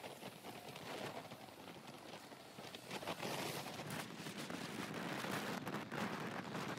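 Wind rushing and buffeting over the microphone of a motorcycle moving at road speed, with road noise underneath; the rush grows louder about three seconds in.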